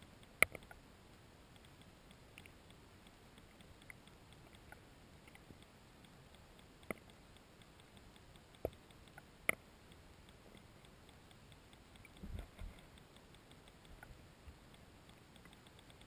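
Quiet underwater sound heard through a GoPro's waterproof housing: a low hiss with a few sharp, scattered clicks and a faint even ticking. A dull double thump comes about twelve seconds in.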